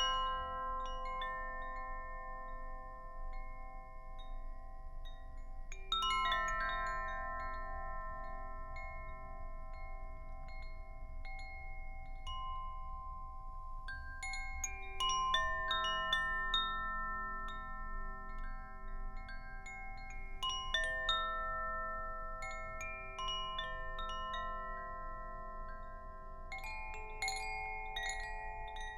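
Tuned metal chimes struck in clusters every five or six seconds, several bright notes at once, each ringing on for many seconds so that the notes overlap. A low wavering hum sits underneath.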